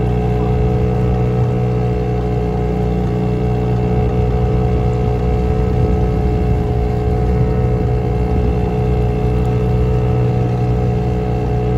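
Boat motor running steadily at a constant speed, a continuous even drone with no change in pitch.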